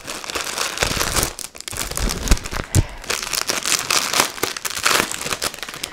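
Clear plastic bag around a cross-stitch kit crinkling as it is handled and turned over, with a few dull bumps of the package in the first half.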